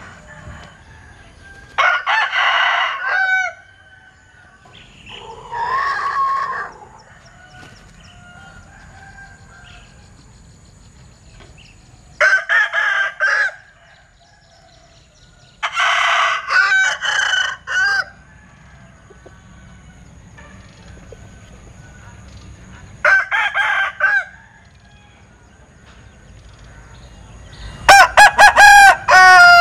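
Gà linh kê rooster crowing six times, several seconds apart. Its strange crow is broken into several short notes, and the last crow, near the end, is the loudest.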